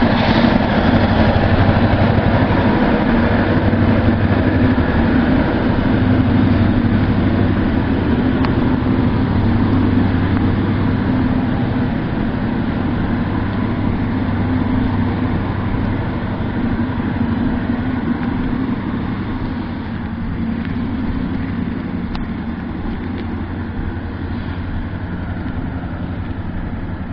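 Diesel locomotive engine running steadily with a low hum, slowly fading as the locomotive moves away.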